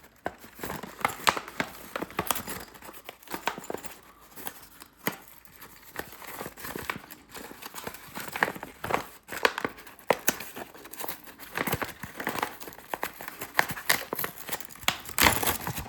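Plastic packaging being crinkled and torn open by hand, with irregular crackling and rustling throughout, as a bag of snowboard binding hardware is unpacked.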